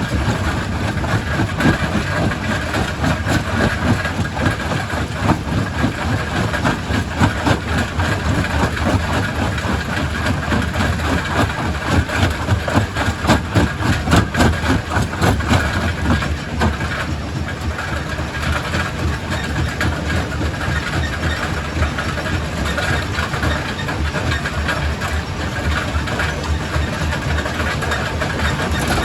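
Primary rock crusher running: a deep, steady mechanical rumble overlaid with dense knocking and clattering of stone being broken. The clatter is heaviest in the first half and eases a little past the middle.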